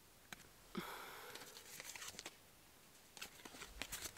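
Quiet handling noise from a card swing tag being held and turned in the fingers: a light click, a soft rustle about a second in, then a run of small clicks and crackles near the end.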